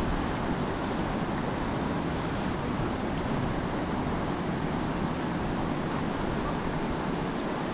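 Steady rush of whitewater on the Youghiogheny River, an even wash of noise with no break.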